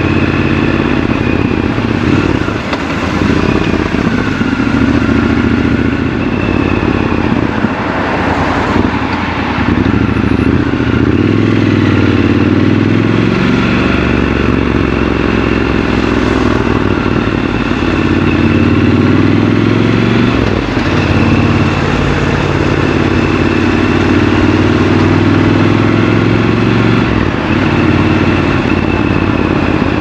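Triumph Scrambler 1200 XC's 1200 cc parallel-twin engine running while riding, heard raw from the bike. Its note rises and falls in steps several times as the throttle opens and closes and the gears change.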